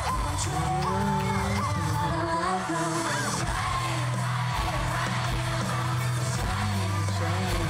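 Live pop concert audio: a song with singing over a steady bass line, with the crowd whooping and cheering.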